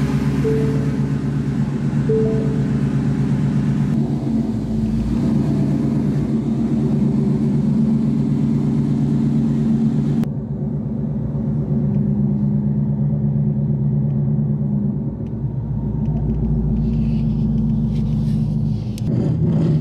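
A 2016 Mustang GT's V8 engine idling as the car creeps along at walking pace, with a steady low rumble. A few short chime tones sound in the first seconds.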